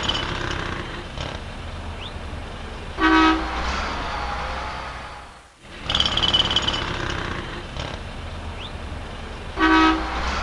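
City street traffic: a steady rumble of passing vehicles, with a short car horn honk about three seconds in. The same few-second clip then plays again, and the horn honks again near the end.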